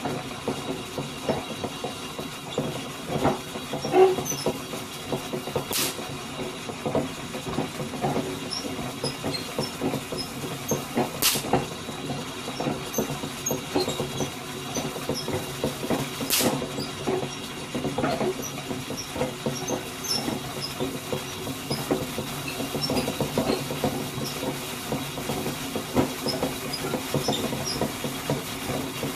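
Hand-cranked Wimshurst machine, over 100 years old, rattling and clicking steadily as its disc is turned. Three sharp spark cracks come about five seconds apart, as the stored charge jumps the gap in a small-scale imitation of lightning.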